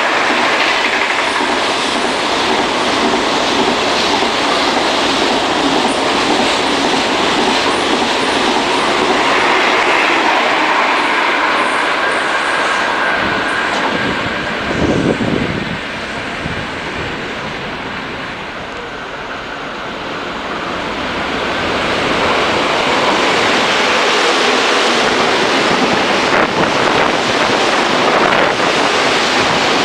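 KTX high-speed train passing through a station at speed, a loud rush of wheel and air noise with clickety-clack over the rail joints. It dies down about halfway through, then builds again as a second train speeds past close by near the end.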